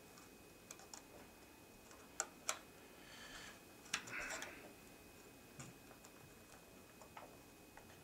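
Small sharp clicks and brief light scraping as a 4 GB SO-DIMM memory stick is slid into the memory slot of a June 2010 Mac Mini and pressed down. The two loudest clicks come close together about two seconds in.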